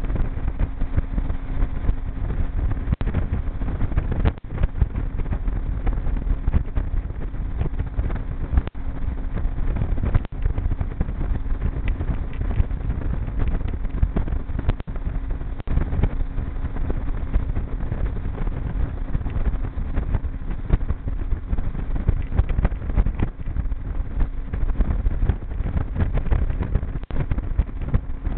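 Outboard motor of a G3 V 167 aluminium boat running at a steady cruising speed underway, a steady hum under a continuous rush of wind and water noise.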